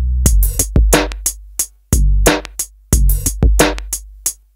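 Background music: a drum-machine beat with sharp hits over deep bass notes.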